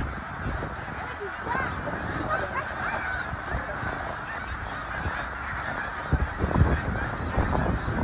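A huge flock of snow geese calling all at once: a continuous dense chorus of overlapping honks and yelps over a low rumble, with a few louder bumps about six to seven seconds in.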